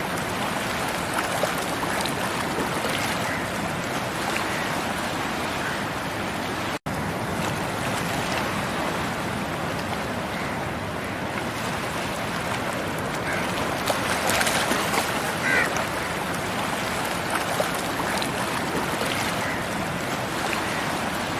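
Sea waves washing onto a tropical beach: a steady hiss of surf that swells and eases, cutting out for an instant about seven seconds in.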